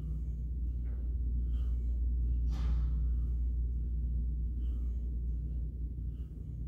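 A steady low hum, with a man's short breaths as he presses dumbbells overhead while seated on an exercise ball. There is one stronger exhale about two and a half seconds in.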